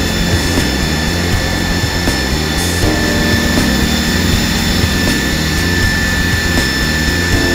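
Electric pump motor running on a variable-frequency drive, pumping water out of the tank: a steady hum with a constant high whine.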